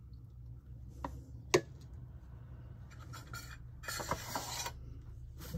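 A utensil clinking and scraping against a stainless steel mixing bowl as the last of the creamy pie filling is scraped out into a glass pie plate. There is a sharp clink about a second and a half in, then scraping around four seconds in.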